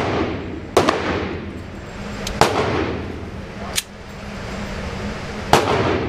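Handgun shots echoing in an indoor firing range: four sharp reports about a second and a half apart, each with a ringing tail, the third one fainter, over a steady low hum.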